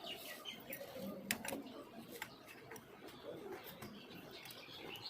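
Faint bird chirps, with a few sharp metal clicks from a spanner tightening the bolts of a motorcycle's cam chain tensioner.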